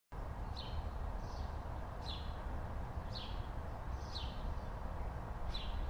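A small bird chirping: short falling chirps repeated roughly once a second, over a low, steady background rumble.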